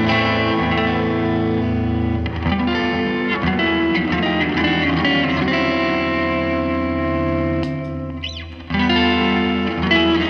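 Squier Stratocaster electric guitar played through a Peavey BackStage Plus amp, with compressor, delay and reverb pedals all switched on: sustained notes and chords ringing out. About eight seconds in the playing dies away for a moment, then starts again.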